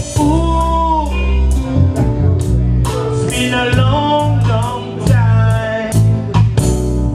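Live reggae band playing: a steady, heavy bass line and drum strokes under keyboards and guitar, with a male singer's voice carrying the melody.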